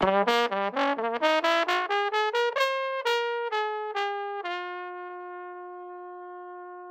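Valve trombone playing a fast run of short tongued notes that climbs in pitch, ending on one long held note from about four and a half seconds in that slowly fades.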